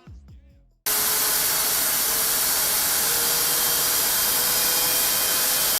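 A loud, steady whirring hiss that starts abruptly about a second in, with a faint steady hum under it: an inserted sound standing in for an old 750 GB spinning hard drive that was failing, exaggerated, meant to sound like it was going to die.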